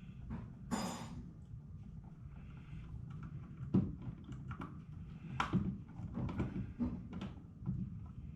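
Scattered light plastic knocks and clicks, with a short rustle about a second in and the sharpest knocks near four and five and a half seconds: a smoke detector being handled while its wiring plug is clipped back in.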